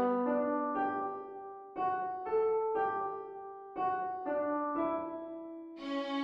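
Solo piano playing slow chords and single notes of a gentle song accompaniment. A new chord is struck every second or so, and each one rings out and fades.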